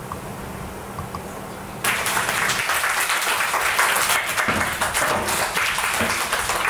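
A class of boys clapping and applauding. The applause starts suddenly about two seconds in, after a quieter low, steady hum.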